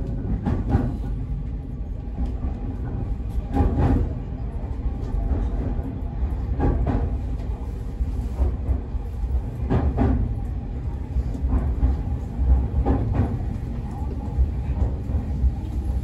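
Semboku 9300 series electric train running on the track: a steady low rumble with a sharp clack about every three seconds as the wheels pass over rail joints.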